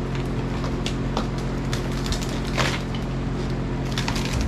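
Rotten wooden boat stringer and floor wood being pried and torn out of a fiberglass hull by hand: scattered cracks and crunches of breaking wood, with a longer tearing crunch about two and a half seconds in and a cluster of cracks near the end. A fan hums steadily underneath.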